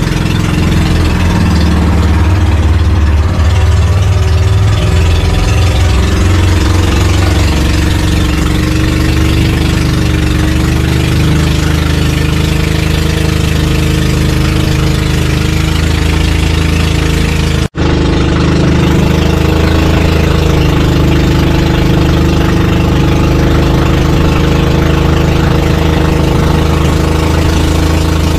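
Motorized outrigger boat's engine running steadily under way, over a hiss of wind and water. The sound drops out for an instant about two-thirds of the way through.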